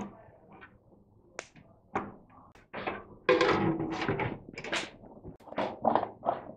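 Small clicks of hand work on a tumble dryer's rear panel, then about three seconds in a louder scraping and rattling of the sheet-metal heater element cover being fitted back against the dryer's back, with a brief ringing of the metal, followed by more small clicks and taps.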